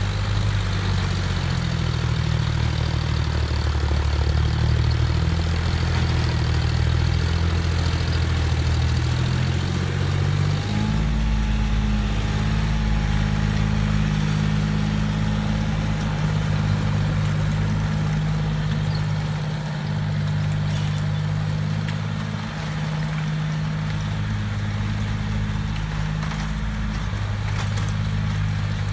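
John Deere tractor's diesel engine running steadily while it pulls a tilling implement through soil; its engine note shifts about ten seconds in.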